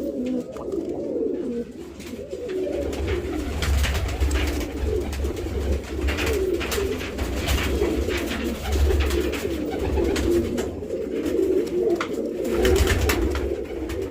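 Domestic pigeons cooing steadily, their low warbling calls running on without a break, with scattered clicks and a low rumble that swells now and then.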